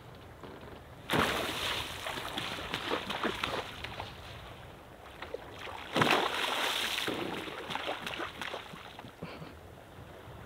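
Two big splashes on the sea surface, about a second in and about six seconds in, as Mobula rays breach and slap back into the water. Each splash trails off over a couple of seconds of fizzing spray and lapping.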